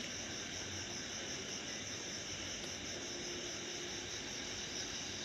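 Night insects chirring in a steady, even chorus, with a faint hiss underneath.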